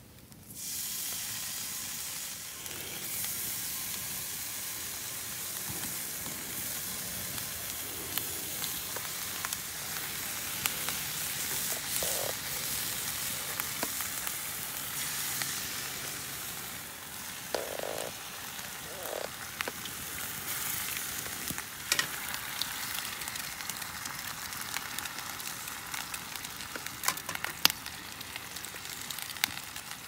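Eggs frying in hot oil in a black frying pan over a wood fire: a steady sizzle that starts suddenly about half a second in as the first egg goes into the pan, with occasional sharp clicks.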